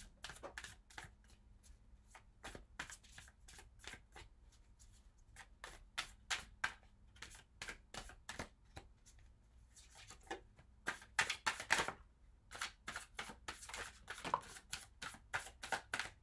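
Tarot deck shuffled overhand by hand: a run of soft, quick card slaps and flicks, a few a second, growing busier and louder over the last third.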